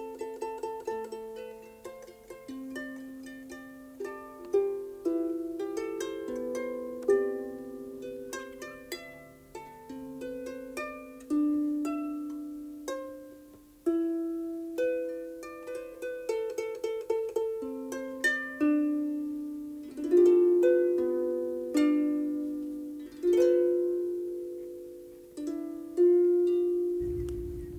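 Harp playing a slow melody of plucked notes, each note ringing and dying away, with a few louder accented notes. Near the end the harp stops and a low rumbling noise comes in.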